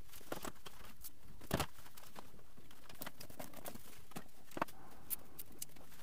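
Scattered light clicks and taps from someone handling cables and a stepladder, over a steady faint hiss. A few taps, about a second and a half in and again near the end, stand out above the rest.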